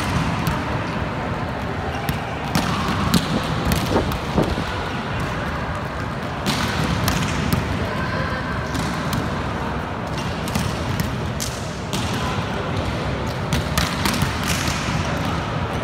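Volleyballs being struck and bouncing on a hard gym floor: irregular, sharp slaps and thuds, several a few seconds apart, over indistinct players' voices in a large hall.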